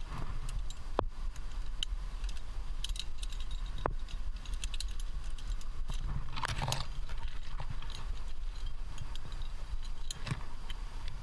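Metal climbing gear clinking on a harness: carabiners and cams jingling, with scattered light clicks and knocks, one busier cluster about halfway through, over a low steady rumble.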